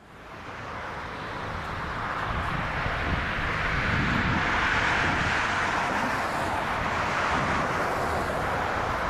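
A steady rushing noise with a low rumble underneath, swelling up from silence over the first two to three seconds and then holding.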